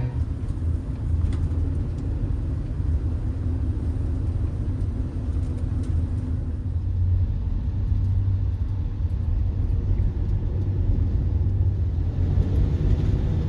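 Vehicle driving on the road: a steady low road and engine rumble.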